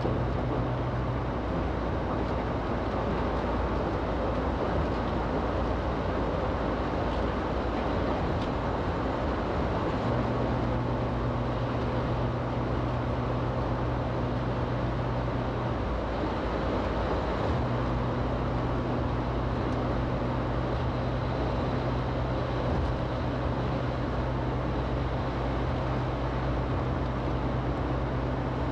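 Cabin road noise from a car driving on a snowy highway in four-wheel drive: a steady rush of tyres and engine. A low hum runs under it and drops out twice for a while.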